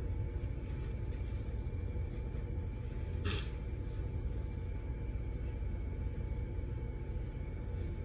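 Steady low rumble of room noise, with one short, sharp breath from a woman about three seconds in, in the middle of an allergic sneezing fit.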